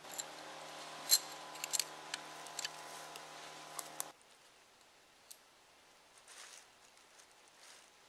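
Camping gear being handled as a nylon tent is spread out over a ground sheet: a series of sharp clicks and light rustling over a steady hum of several tones. About four seconds in, the hum stops abruptly and only faint rustling remains.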